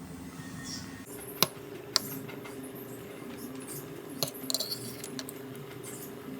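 A few sharp clicks and light clinks of small hard objects being handled, over a steady low hum.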